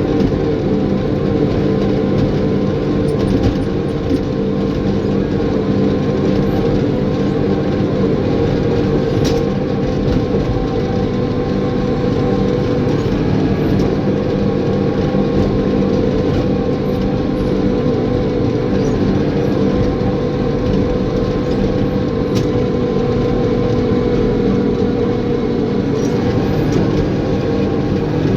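Caterpillar bulldozer's diesel engine running steadily at working revs, with a few sharp knocks along the way.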